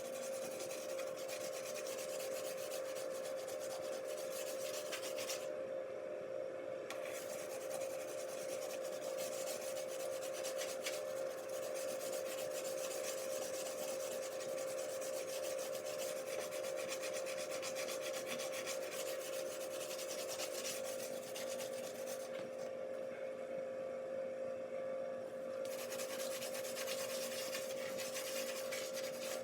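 A dishwasher tablet scrubbed against oven-door glass in steady strokes, a continuous rasping rub that stops twice for a moment, once briefly and once for about three seconds. A steady hum runs underneath.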